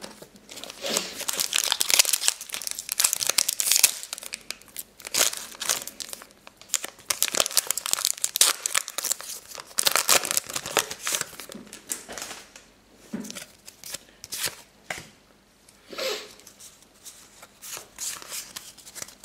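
Foil Pokémon booster pack wrapper crinkling and tearing open in repeated bursts as the cards are pulled out of it.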